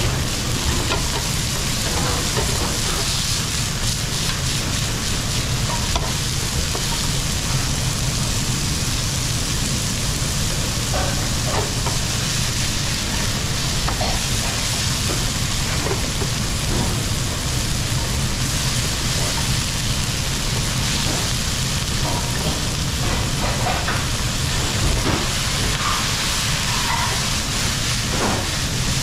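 Food frying and sizzling steadily in a hot pan, with scattered light clicks of a utensil stirring it.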